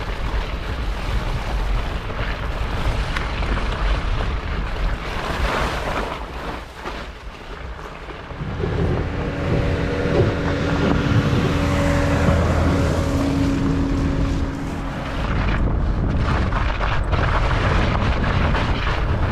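Wind buffeting the microphone over the rolling noise of fat-bike tires through snow and slush; for several seconds in the middle a steady hum joins in.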